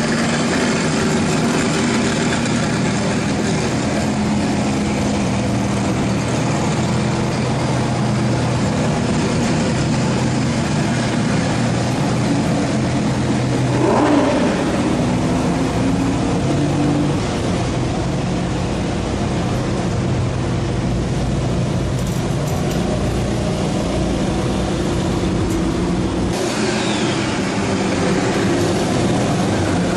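Several supercar engines rumbling at low revs as the cars creep past in a line, with one brief throttle blip about 14 seconds in.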